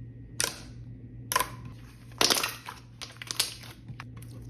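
Glossy, clicky slime being pressed and squished by hand, giving a handful of short, sharp clicks and pops about a second apart.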